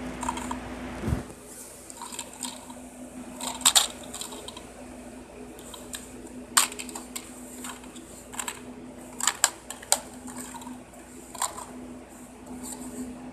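Plastic DVD cases being handled: several sharp clicks and knocks at irregular moments over a steady low hum.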